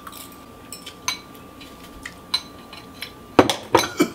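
Light clinks of a metal fork against a glass bowl of ramen noodles, a few seconds apart, then a quick run of louder clinks and knocks near the end.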